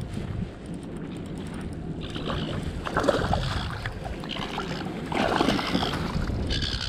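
Water splashing as a hooked Australian salmon thrashes at the surface and is scooped into a landing net, in two bouts about two and five seconds in. The net is lifted out streaming and dripping water near the end.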